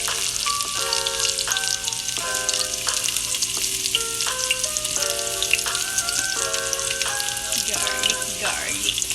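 Chopped garlic frying in hot oil in a pan: a steady crackling sizzle. A melody of instrumental notes plays over it.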